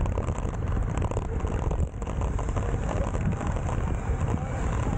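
Steady wind noise buffeting an action camera's microphone while a road bike is ridden in a race bunch.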